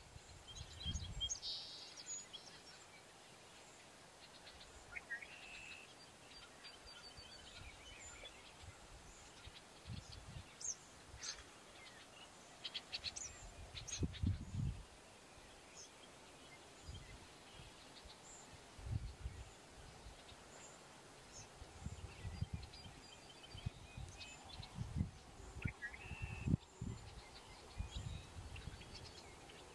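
Lakeside morning birdsong: scattered short chirps and brief trills from several birds over a faint outdoor hush. Irregular low bumps, likely wind on the microphone, come and go throughout.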